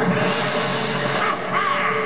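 Film soundtrack music, with a short animal cry about one and a half seconds in.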